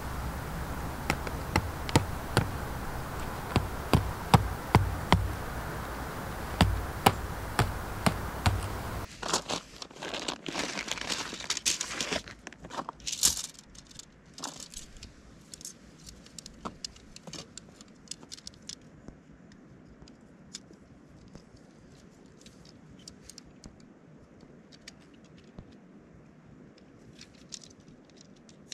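Metal tent peg and steel corner ring clinking in quick sharp clicks over a steady hiss, then tent fabric rustling and crinkling for a few seconds, followed by scattered light clicks and taps as a tent pole is handled.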